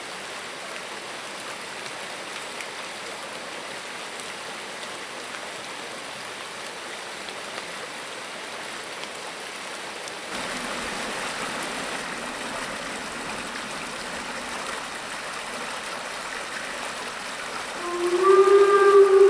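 Rocky stream rushing over stones; the rushing steps louder about halfway through. Near the end a steam locomotive's whistle sounds one long, loud, steady blast over the water.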